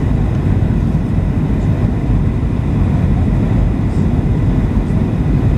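Steady cabin rumble of a Boeing 737-700 heard from a passenger seat: its CFM56-7B engines and rushing airflow make a dense low roar with no distinct events.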